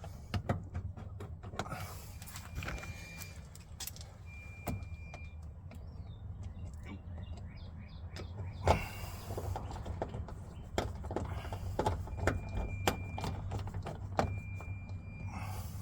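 Socket wrench and hand-tool handling on a truck door panel: scattered clicks, taps and knocks as a bolt is worked, with a few brief high-pitched tones about a second long and a steady low hum underneath.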